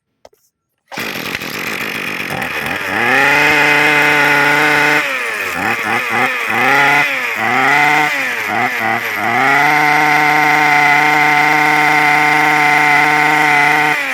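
Hitachi 27cc two-stroke brush cutter engine catching on the pull cord about a second in and idling. It is then revved to high speed, blipped up and down several times, and held at full throttle before dropping back at the very end. It runs smoothly and quietly for a used engine.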